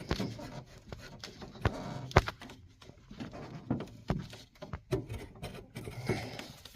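Scattered clicks and light knocks, half a dozen in all, with faint handling rustle between them, as a screwdriver and fingers work at the plastic Canoe filter and its retaining plate in a combi boiler's hydraulic manifold to prise it loose.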